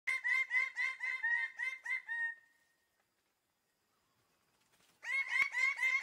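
Birds-of-paradise calling: a quick series of repeated loud call notes, about five a second, that stops after about two seconds and starts again near the end.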